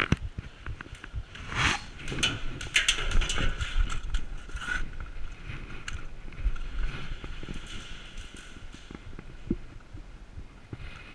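Airsoft guns firing a burst of shots: rapid clicks and cracks, densest in the first half and thinning out toward the end.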